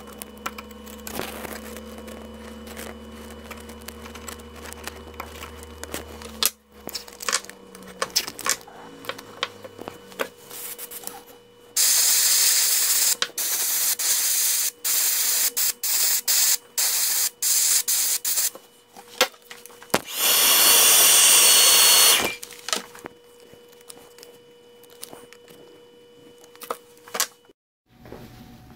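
Airbrush spraying paint through a tape mask around a lure's eye: a string of short on-off hisses, then one longer, louder hiss about two-thirds of the way through. Before that there is a low steady hum that stops about six seconds in, with light taps and clicks of handling throughout.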